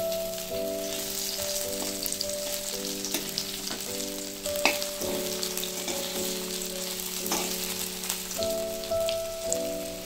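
Bitter gourd pieces shallow-frying in oil in a steel kadai, with a steady sizzle and crackle. A steel spatula clicks against the pan a few times, most clearly about halfway through, over a quiet instrumental background tune.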